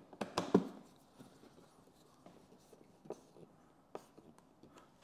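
Hand screwdriver tightening the windshield bolts into a motorcycle fairing: a short cluster of clicks and scrapes about half a second in, then scattered faint ticks of the tool on the bolt heads.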